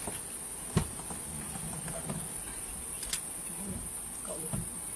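A steady, high-pitched chorus of insects droning without a break, with a sharp click about a second in and a fainter one about three seconds in.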